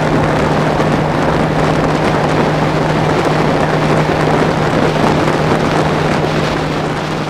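Bass boat's outboard motor running flat out, a steady unchanging engine drone under heavy rush of wind and water on the microphone, starting to fade near the end.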